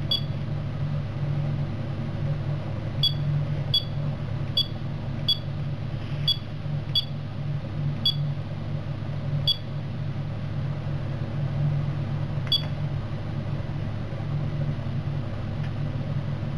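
Key-press beeps from an APEX on-board bus terminal as its buttons are pressed: about ten short, high beeps, several in quick succession between three and seven seconds in, with the last one near the end. Under them runs the steady low hum of the idling bus engine.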